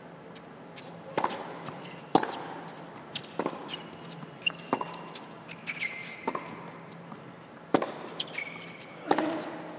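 Tennis ball bounced before the serve, then struck back and forth by rackets during a rally on an indoor hard court: about eight sharp pops roughly a second apart, with a few short high shoe squeaks between them.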